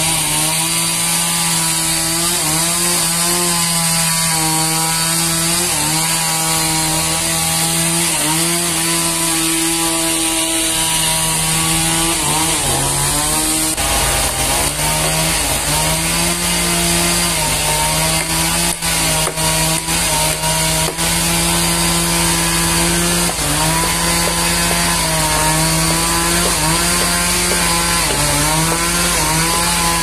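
Chainsaw running at high revs under load, its pitch dipping and recovering again and again as it works the wood.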